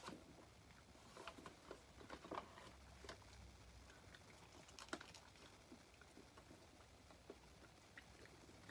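Quiet, scattered small clicks and paper crinkles of eating: a small dog chewing and licking food off a spread-out paper bag while a person chews a burger.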